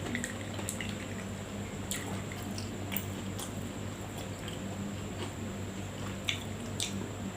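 Close-miked chewing and wet mouth clicks of a person eating fried rice: scattered short sharp clicks over a steady low hum and a faint high steady whine.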